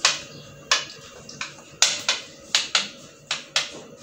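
Metal spoon clicking against a glass baking dish about ten times at an uneven pace while spreading béchamel sauce over rice.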